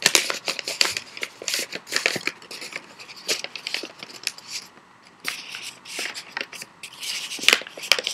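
A folded sheet of paper being handled and refolded: crisp rustling and crinkling with irregular sharp crackles, the sharpest at the start and about seven and a half seconds in.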